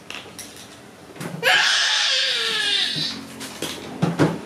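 A young child's loud, high-pitched vocal cry lasting about a second and a half, falling in pitch, followed by a few light knocks of plastic toys being handled.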